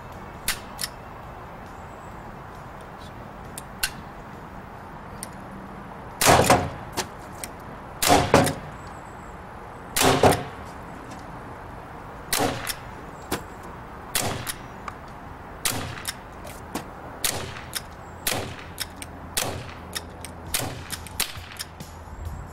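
Crosman 357 .177 CO2 pellet revolver firing a string of about ten shots, one every one to two seconds, starting about six seconds in. The first three are the loudest and ring briefly; the rest are sharper and fainter.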